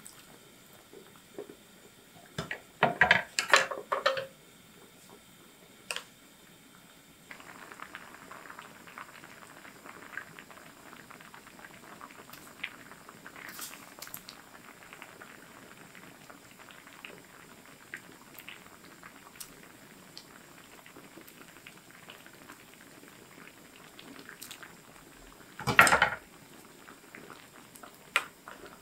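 Cookware clattering a few seconds in, then from about seven seconds in a steady bubbling hiss of food cooking on the stove. Another loud clatter of cookware comes near the end.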